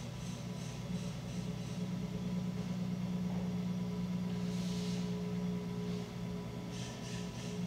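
Potter's wheel motor humming steadily while hands shape a tall clay jar turning on it, with soft rhythmic swishes about three a second at the start and again near the end.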